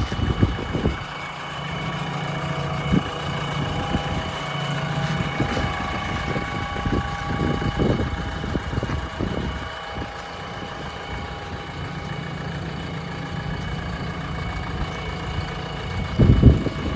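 JCB 3DX Plus backhoe loader's diesel engine idling steadily. A brief louder low rumble comes near the end.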